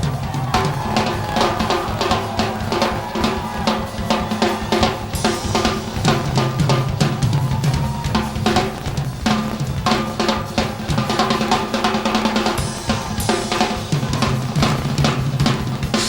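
Live drum kit played fast and freely as an improvised solo, with dense snare and bass drum hits over a held low chord underneath.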